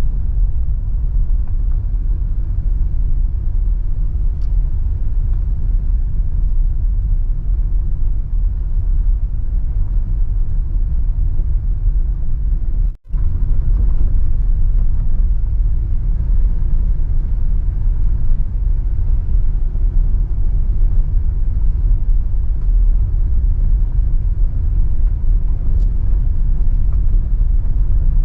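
Car driving along a road: a steady low rumble of engine and tyres, which cuts out for a split second about halfway through.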